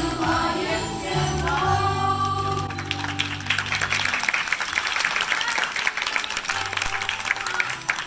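Music with singing, which ends about three seconds in as an audience breaks into applause that carries on.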